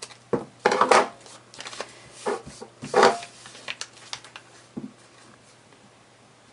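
A square of paper rustling and crinkling in a few short bursts as it is handled and folded, the loudest about a second in and about three seconds in.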